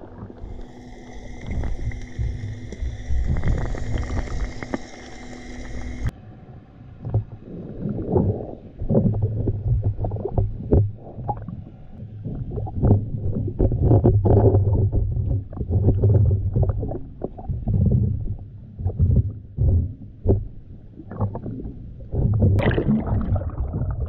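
Surf churning and sloshing as heard by a camera under the water: muffled, irregular low rumbling surges and thumps. For about the first six seconds a steady hiss with faint steady tones, which cuts off suddenly.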